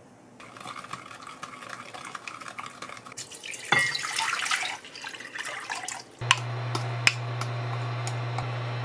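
Water poured from a glass measuring cup into a pot, splashing loudly for about a second and a half. About six seconds in, a steady low hum starts, which is the induction cooktop switching on under the pot, with a few sharp clicks of a wooden spoon against glass.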